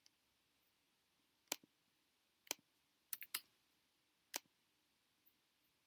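Near-silent room tone broken by six sharp clicks from working a computer, spaced about a second apart, with three in a quick run near the middle.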